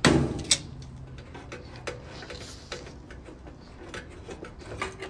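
Tongue-and-groove pliers and a washer's metal water-inlet hose coupling clicking as the hose is unscrewed from the back of the machine. There is a sharp click at the start and another about half a second in, then a run of light ticks and small knocks.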